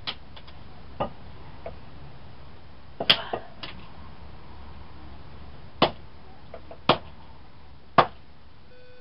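Sharp blows striking a Samsung Juke phone as it is smashed apart: a few lighter knocks, a quick cluster of hits about three seconds in, then three hard single hits about a second apart near the end.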